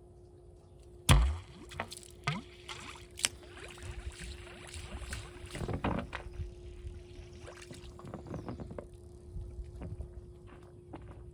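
A sharp knock about a second in, then scattered clunks and rustling of hands working on equipment, over a steady hum.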